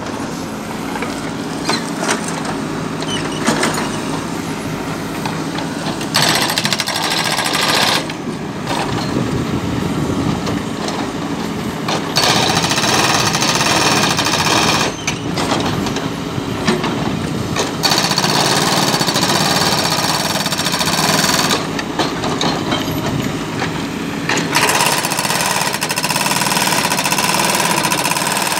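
Backhoe-mounted hydraulic breaker hammering asphalt in repeated bouts of two to four seconds, over the steady running of the backhoes' diesel engines.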